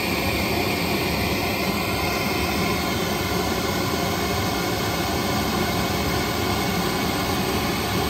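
Pink noise test signal played through a small Sony three-way bookshelf speaker: a steady, even hiss across the whole range. It is a calibrated measurement signal, set to 85 dB at one meter, used to measure how the speaker's level falls off at the listening seats.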